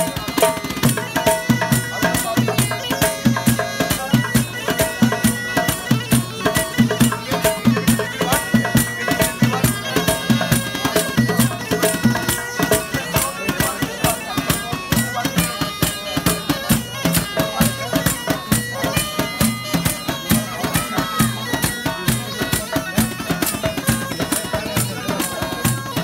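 Street band playing a lively folk tune: a goatskin bagpipe carries a reedy, unbroken melody over a fast, steady beat on conga drums and a box drum.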